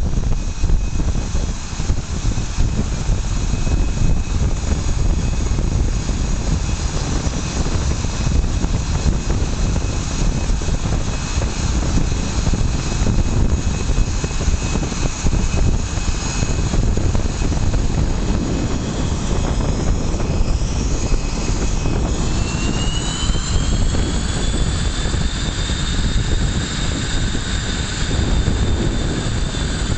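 F/A-18 Hornet's twin jet engines running at the catapult: a loud, steady rumble with a high turbine whine on top. About two-thirds of the way through, the whine rises in pitch and then holds higher as the engines spool up.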